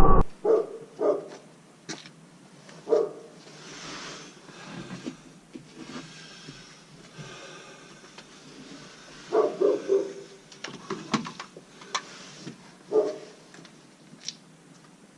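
A dog barking in short single barks and small clusters, with faint hiss between them.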